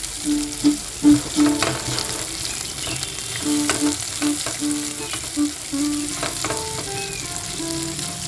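Sliced onions and garlic sizzling in hot mustard oil in a steel kadai, stirred with a silicone spatula that scrapes and taps against the pan. A simple melody of background music plays along.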